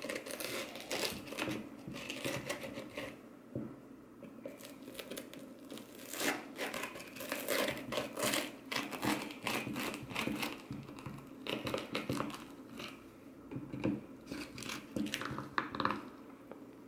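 A plastic pie server cutting through the flaky baked top crust of an apple pie, the crust crackling and crunching in irregular crisp bursts, with a quieter pause about four seconds in.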